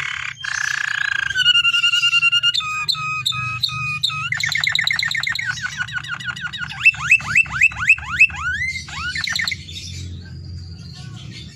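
Domestic canary singing a long, varied song: fast trills, held whistled notes, and repeated paired notes, then a run of loud downward-sweeping notes at about four a second. After that the song thins out near the end. A faint steady low hum runs underneath.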